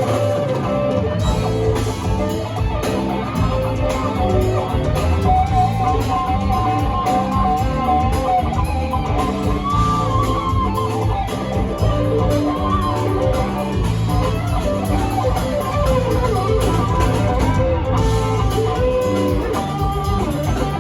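Live funk-rock band playing an instrumental jam, an electric guitar playing a wavering lead line over bass and a steady drum beat.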